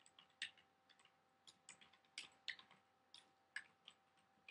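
Faint computer-keyboard typing: short, irregular key clicks, a few a second, as a web address is typed in.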